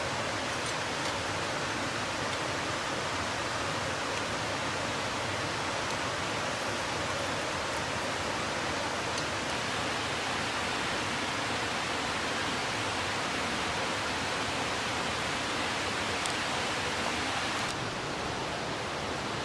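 Steady rushing water of a mountain stream, dropping slightly in level near the end, with a few faint ticks.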